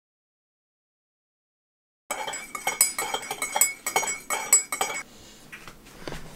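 After about two seconds of dead silence, a metal teaspoon stirs tea in a ceramic mug, clinking quickly and repeatedly against the sides for about three seconds. Then only quiet room sound with a few light knocks.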